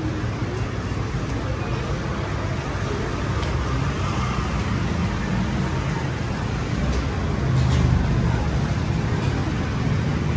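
Steady street traffic noise from passing cars and motorbikes, swelling briefly about three-quarters of the way through.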